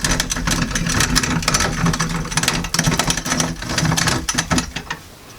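Grain mill crunching grain between its grinding plates: a dense, irregular crackle of clicks over a low mechanical hum, stopping near the end. The plates are still set slack and are only just starting to crush the grain.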